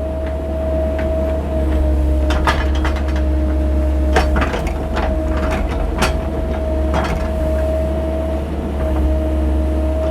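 Mini excavator's diesel engine running steadily, with a constant low drone and a steady higher hum over it, and a few sharp clicks scattered through.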